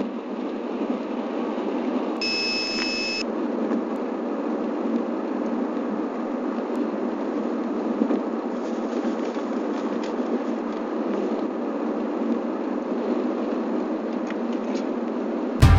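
Steady road noise inside a moving car's cabin. A single high electronic beep sounds for about a second, about two seconds in.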